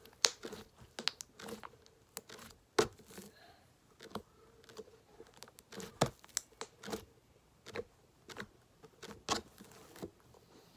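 Hands squeezing, folding and stretching a large lump of stretchy slime, making irregular sticky pops and clicks as it clings and pulls off the fingers.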